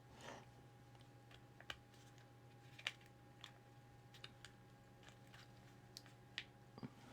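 Faint, scattered clicks and taps of small model kit parts being handled and fitted together by hand, over a low steady hum.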